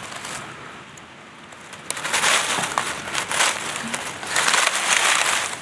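Crackling and crunching of dry leaf litter and soil being disturbed, louder from about two seconds in.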